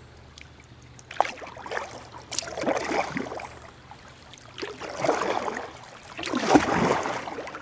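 Kayak paddle strokes: the blade dips and splashes in the river about four times, roughly one stroke every one and a half to two seconds, over the low wash of moving water.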